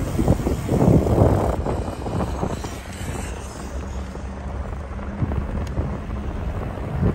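Wind buffeting the microphone of a moving bicycle, over a low rumble of riding along pavement. The gusts are strongest in the first two seconds, then the noise settles steadier and a little quieter, with a faint steady hum in the middle.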